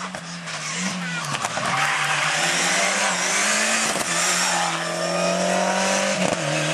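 A Ford Escort rally car's engine running hard as the car passes close by at speed, with a rush of noise as it goes past about two seconds in, then pulling away up the road. The engine pitch rises and falls with the revs.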